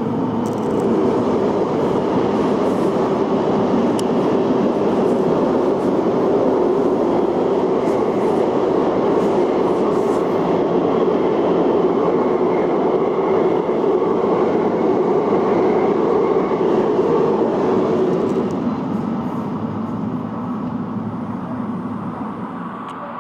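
Elizabeth line Class 345 electric train running past below, a steady rumble of wheels on rail with a faint motor whine. The sound eases off over the last few seconds.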